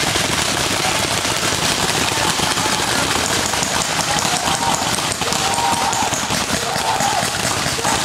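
Paintball markers firing in rapid strings, a dense crackle of many overlapping pops from several guns at once, thickening in the second half.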